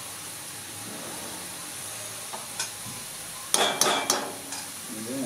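Fries sizzling steadily in hot oil, with a metal utensil clattering against the pan several times about three and a half seconds in and again near the end.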